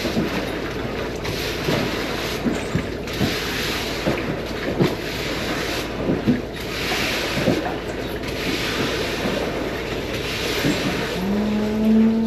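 Broom being pushed through shallow floodwater on a barn floor in repeated swishing strokes, with scattered knocks. A cow moos once near the end.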